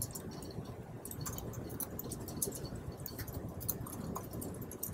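Laptop keyboard being typed on: faint, irregular key clicks over a low room hum.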